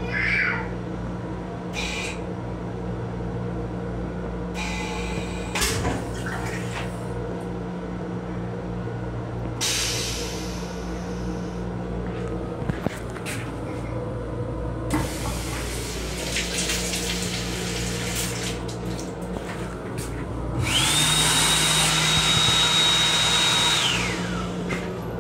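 Steady low hum of an M7 railcar restroom, with a few scattered knocks. Near the end a small electric motor spins up to a steady high whine, runs for about three seconds, then winds down.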